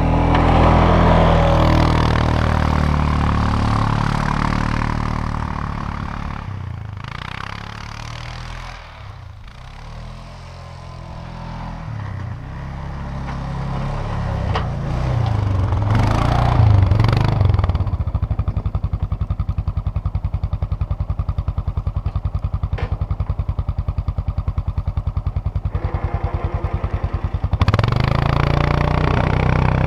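ATV engine running as the quad pushes snow with a front plow blade. It is loud as it passes close, fades away over the first several seconds, swells again, then runs steadily and jumps louder near the end as the machine comes back close.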